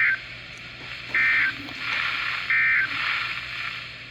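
Emergency Alert System SAME data bursts: short, shrill warbling bursts of digital tone, the end of one, then two more about 1.3 s apart, over steady radio hiss. Bursts this short are the 'NNNN' end-of-message code that closes an EAS alert.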